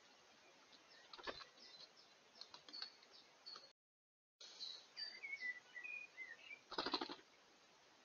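Faint woodland birdsong of short high chirps and, in the second half, a warbling run of calls, with scattered sharp taps of a bird pecking seed in a plastic feeder dish. Near the end a quick fluttering burst, as of wings, is the loudest sound; the audio drops out briefly just before halfway.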